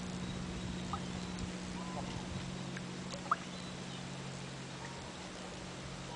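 Outdoor shoreline ambience: a steady low hum under a few short, distant bird chirps, the sharpest one about three seconds in.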